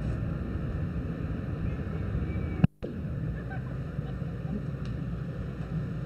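Steady low rumbling background noise, broken about two and a half seconds in by a sharp click and a split-second dropout.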